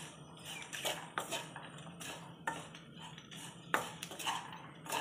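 Wooden spatula stirring and tossing chopped yardlong beans in a kadai, with irregular scrapes and knocks against the pan; the sharpest knock comes about three-quarters of the way through.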